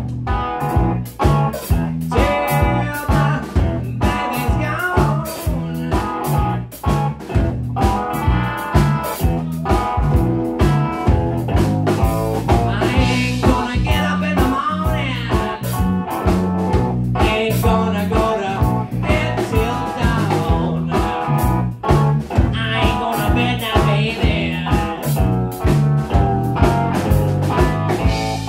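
Live blues-rock band playing: electric guitar over bass guitar and a drum kit keeping a steady beat.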